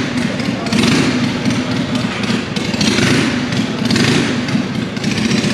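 Motorcycle engine running at a fast idle, rising and falling every second or two as the throttle is blipped.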